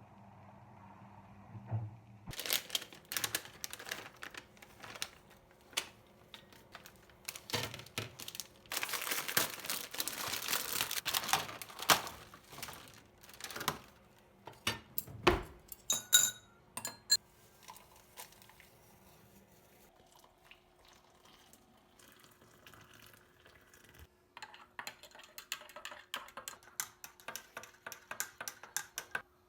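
Household cleaning sounds: objects handled and set down in irregular clicks, knocks and clatter, with a dense hissing rush for about three seconds around nine seconds in. There is a brief ringing clink near the middle and a run of quick clicks near the end.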